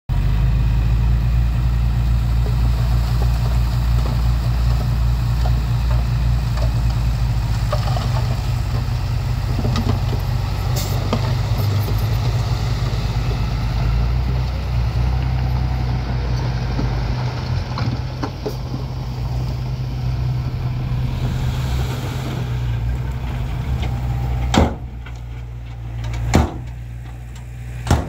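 Diesel dump truck's engine running steadily as the bed tips and the load of soil and rock slides out. Near the end, the engine drops away and there are three loud sharp bangs a couple of seconds apart.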